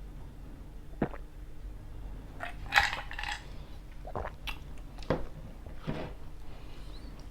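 Close-miked eating sounds of pizza being bitten and chewed: scattered sharp mouth clicks and light clinks, with one louder crackling bite a little under three seconds in.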